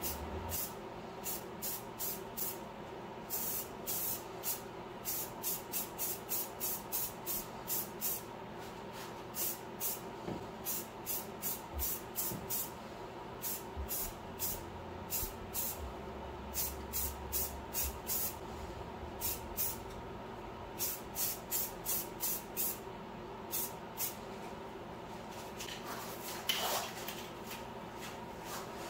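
Short bursts of compressed air from a blow gun, several a second in quick runs with brief pauses, blowing sanding dust off a freshly sanded rear axle housing before priming. A steady faint hum runs underneath, and there is one louder noise near the end.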